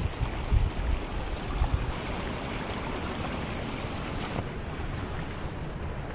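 Small creek running beneath snow and ice, a steady rush of water, with a few low thumps in the first couple of seconds.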